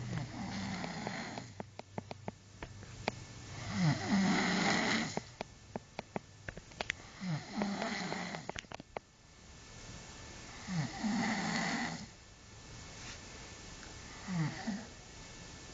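A man snoring in his sleep, one snore about every three and a half seconds, each opening with a short rising rumble into a rasping breath, with short clicks between some of the snores.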